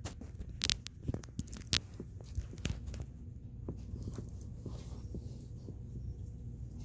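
Handling noise of a phone held close to the body: a run of sharp knocks and rubs in the first three seconds, then a low steady hum with a few faint ticks.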